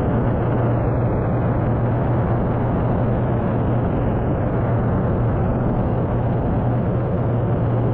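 Cessna 182RG's six-cylinder Lycoming O-540 engine and propeller in cruise flight: a loud, steady low drone with a constant rush of wind over it.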